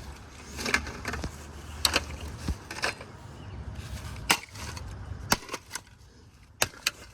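A computer power supply being knocked and handled: about ten sharp knocks and clatters at irregular intervals over a low rumble, fewer and fainter near the end.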